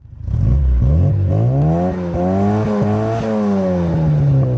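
A car engine revving: its pitch climbs over the first couple of seconds, holds briefly, then falls slowly as the revs drop.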